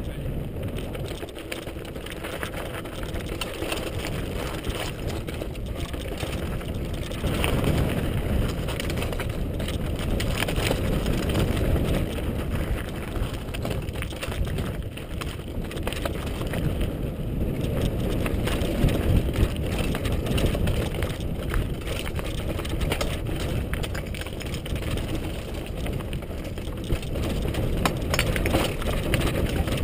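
Mountain bike rattling and clattering over a rough stone and gravel track at speed, with a dense run of small knocks and crunches from the tyres and frame on the rocks, heard through a GoPro HD camera on the rider.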